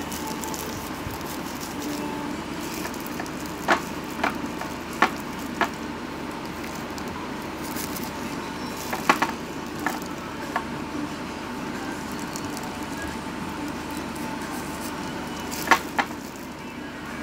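Handling sounds of a plastic food-prep glove and foil while sliced almonds are scattered onto cake batter: a scatter of short, sharp crinkly clicks in small clusters over a steady background hiss.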